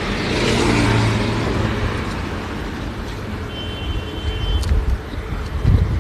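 Road traffic passing over the bridge, a steady rumble with a vehicle's engine hum early on, under a strong wind. A short high steady tone sounds about halfway through.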